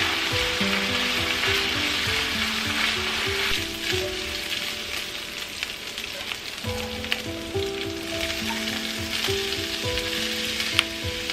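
Ground beef and onions sizzling as they fry in a nonstick pan, with the knocks and scrapes of a wooden spatula stirring them. The sizzle eases a little in the middle, and a sharp tap comes near the end as chopped yellow pepper is added.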